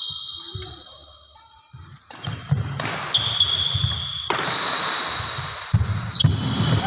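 Badminton doubles rally on a wooden indoor court: players' feet thud on the floor, and there are sharp racket-on-shuttlecock strikes, several of them followed by a high ringing tone lasting about a second. All of it echoes in a large hall.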